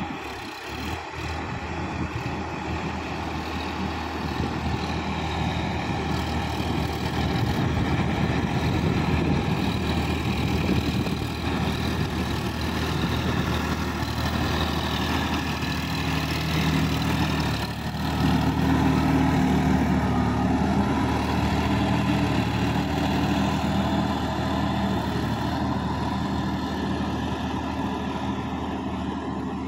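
Sonalika DI-50 RX tractor's diesel engine running steadily under load as it churns a flooded paddy field with a rotary implement. It grows louder over the first several seconds as the tractor comes close, dips briefly a little before halfway, then slowly fades as the tractor moves away.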